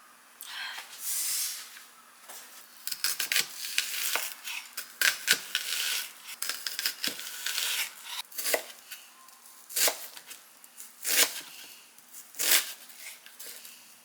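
Kitchen knife chopping vegetables on a cutting board, in irregular knocks with some rustling between them.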